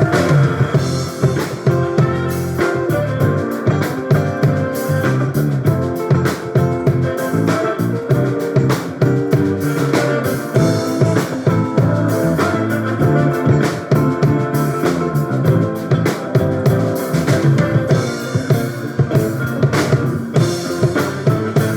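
A live band playing at a soundcheck, electric guitar and drum kit over a steady beat.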